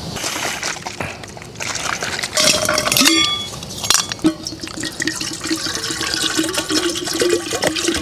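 Makgeolli (Korean rice wine) being poured from its bottle into a cup. Some clinks and handling of the bottle come first; from about halfway on there is a steady pouring sound.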